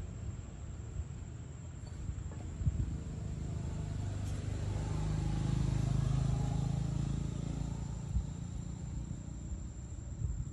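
A motor vehicle passing by: a low engine hum swells over a few seconds, peaks mid-way and fades away, over a steady high insect drone.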